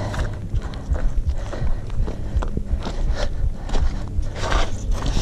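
Shoes scuffing and stepping on gritty sandstone slickrock in an uneven run of short scrapes while scrambling uphill, over a steady low rumble on the microphone.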